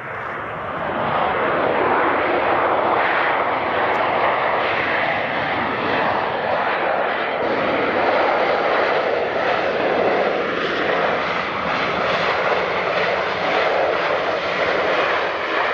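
Boeing 737-800's CFM56 jet engines running loud and steady as the airliner rolls along the runway close by. The noise swells over the first two seconds, then holds.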